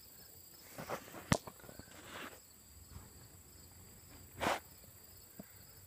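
Handling noise as a camera is repositioned: a few scattered rustles and scuffs, with one sharp click a little over a second in. Under it runs a steady high-pitched insect buzz.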